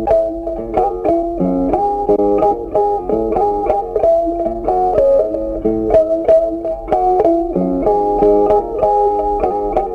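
Background music: a plucked-string melody of quick, short notes.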